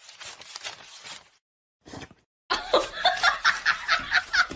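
A person laughing hard in quick repeated bursts, starting about halfway in after a brief silence.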